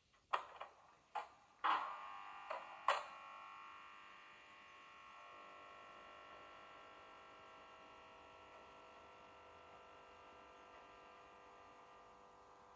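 Model electric locomotive, the PIKO V43 1001, standing with its sound running: five sharp clicks in the first three seconds, then a steady electric hum of many tones that sets in about two seconds in and settles slightly quieter.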